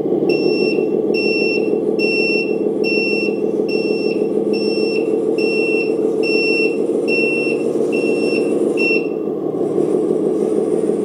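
Reversing alarm from a 1/14 RC tractor truck's sound module, a steady high beep repeating a little faster than once a second, played over the module's simulated truck diesel running steadily. The beeping, the sign that the truck is in reverse, stops about nine seconds in while the engine sound carries on.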